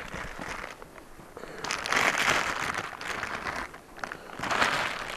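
Plastic bag of rice crinkling as hands reach in for grains. It comes in two bursts, about two seconds in and again near the end.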